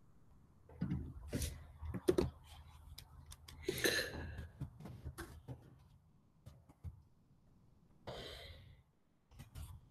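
Faint, irregular computer keyboard taps and mouse clicks as a web address is pasted and typed. Two short breathy noises come about four and eight seconds in.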